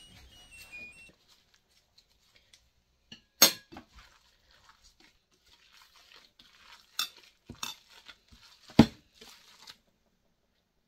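Gloved hand kneading a minced beef, egg and bread mixture in a ceramic bowl: faint, soft squishing, broken by four sharp clinks against the bowl, the loudest near the end.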